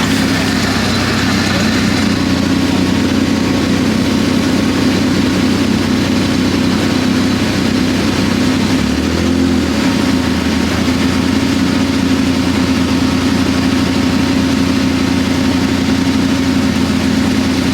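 ATV engine running steadily while riding, with a brief change in the engine note about nine seconds in.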